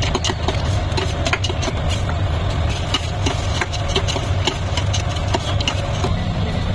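Steady low rumble of idling vehicle engines in street traffic, with many light clicks scattered over it.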